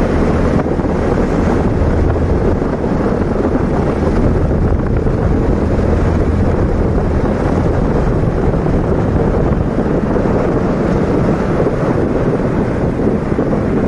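Wind buffeting the microphone on a moving motorcycle, with the engine's low, steady hum underneath.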